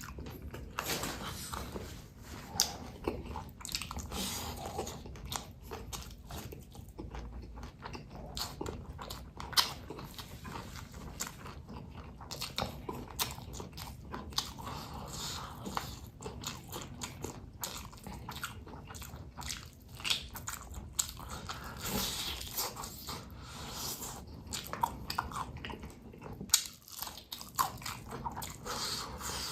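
A person biting into and chewing gendot chilies, with many short, irregular crunches.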